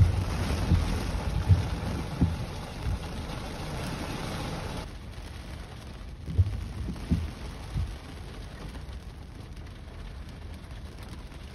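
Heavy rain on a car's roof and windshield, heard from inside the car: a steady hiss with irregular low thumps, easing off suddenly about five seconds in.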